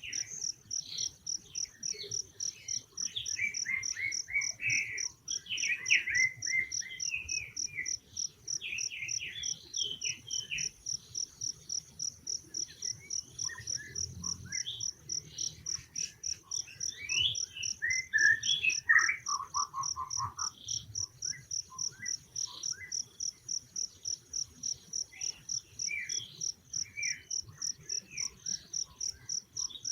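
An insect chirrs steadily in evenly spaced high pulses, about three a second, under scattered short chirping calls that come thickest in the first third and again just past the middle.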